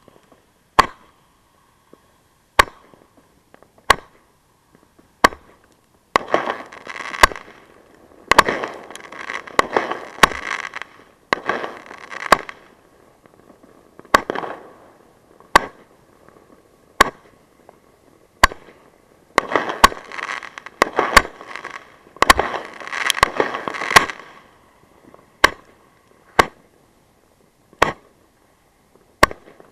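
Fireworks mortar battery firing, heard from right beside the tubes: a sharp launch shot about every second and a half. Two longer stretches of dense crackling come in between.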